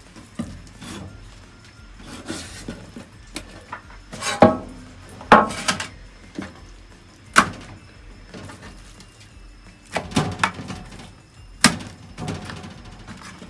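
Irregular knocks and taps on a wooden cutting board, with softer handling noise between them, as pieces of filleted conger eel are picked up and laid into a stainless steel tray. About half a dozen sharp knocks stand out, the loudest a little over four and five seconds in and again near the end.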